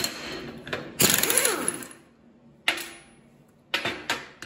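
Air impact wrench hammering for under a second, about a second in, breaking loose and spinning off the nut on a mini bike torque converter's shaft. A few sharp knocks follow as the tool is set down on the workbench.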